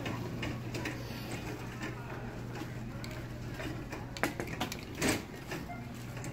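Shopping cart being pushed across a hard store floor, its wheels and wire frame giving off a run of irregular small clicks and rattles over a steady low hum. A couple of sharper clicks come a little after four seconds in, followed by a brief louder noisy burst.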